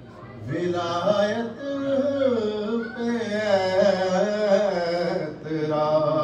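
A man chanting an Urdu elegy (nauha) in long, wavering held notes, with short breaths between phrases.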